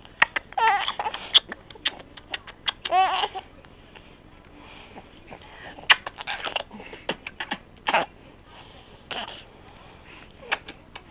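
Young baby giggling and laughing in short bursts of squeals that rise and fall in pitch, with pauses between them.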